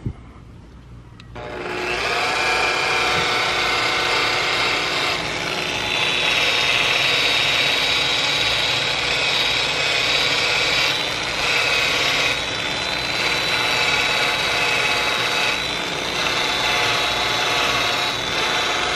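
Small rotary polisher with a 3-inch foam polishing pad starting up about a second and a half in and running steadily with a high whine against a painted wheel rim. It is a light polishing pass to take 3000-grit sanding scratches out of touch-up paint over a curb-rash repair.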